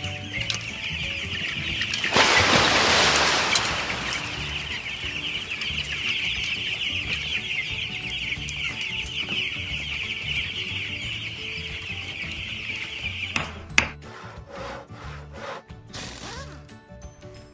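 Dense, steady peeping of a large flock of young broiler chicks, with a loud rush of water poured from a plastic jug into a basin about two seconds in. Near the end the peeping stops, and a run of clicks and short mechanical sound effects follows over faint background music.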